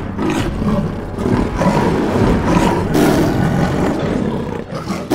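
Loud animal roaring and growling, continuous and swelling several times, with no words over it.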